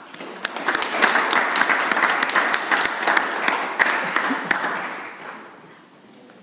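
A small audience clapping: a handful of people, with some sharp claps close by, building quickly and then dying away a little after five seconds in.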